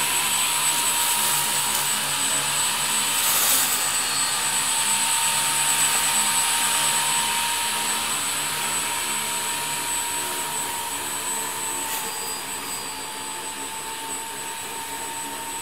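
Homemade radio-controlled lawn mower built on an old electric wheelchair base, cutting grass with its spinning cutter discs: a steady high whine over a hiss. It fades over the second half as the mower drives away.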